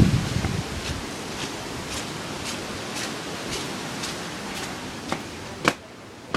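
Hurricane wind and rain making a steady hiss, with a gust buffeting the microphone in the first second. Faint ticks come about twice a second, and a sharp click sounds near the end.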